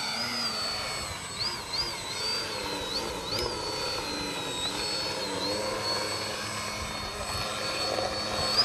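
Small motor and propeller of a radio-controlled model plane built as a flying lawn mower, a high whine that repeatedly rises and dips in pitch as the throttle and its distance change.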